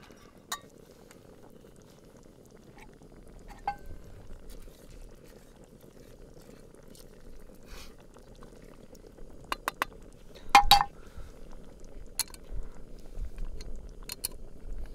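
Metal cookware clinking and scraping: a wooden spoon and a pot-gripper handle knock against a metal camp bowl. There are a dozen or so sharp clinks, bunched a little under halfway through and loudest about ten seconds in, over a steady low hiss.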